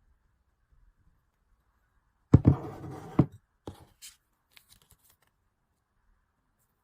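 Merchandise and its packaging being handled: a sharp knock, a second of scraping rustle and a second knock, then a few light clicks.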